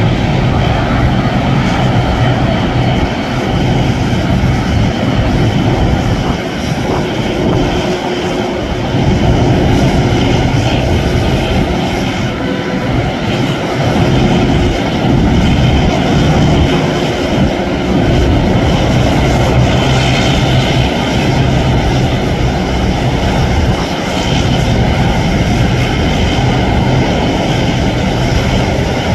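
Boeing 767-300 airliner's twin jet engines running at taxi power as it taxis and turns: a steady, loud rumble with a hiss above it.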